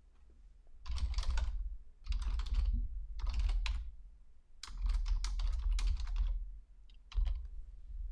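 Typing on a computer keyboard: several short bursts of rapid keystrokes with brief pauses between them.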